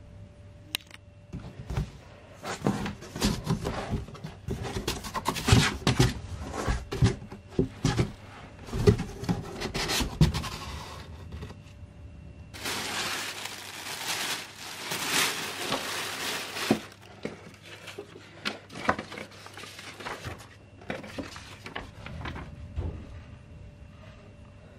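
Cardboard packaging being opened and handled: flaps and box walls knocking and scraping for the first half, then a plastic packaging bag crinkling and rustling for several seconds past the middle, followed by lighter paper and cardboard handling. A faint steady hum runs underneath.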